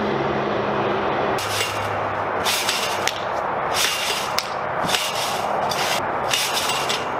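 Backyard trampoline being jumped on, with repeated short hissy bursts from the springs and mat roughly once a second as the jumper bounces. A steady low hum carries through the first second and a half.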